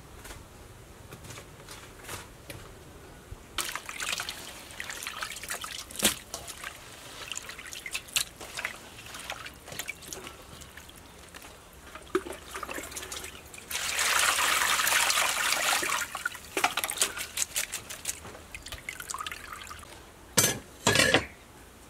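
Hands scrubbing small soldier fish with salt in water in a metal bowl: scattered splashes and sloshing, with water pouring steadily for about two seconds in the middle. Two short loud noises come near the end.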